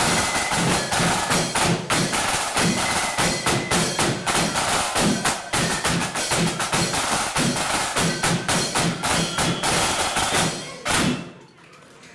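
Marching flute band playing, with rapid, heavy snare and bass drumming under sustained flute notes. The tune ends on a final hard beat about eleven seconds in.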